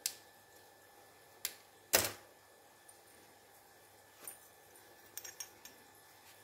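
Scattered sharp clicks and taps of a metal wireless-microphone handle and small tools being handled on a workbench. The loudest click comes about two seconds in, and a quick run of small clicks comes near the end.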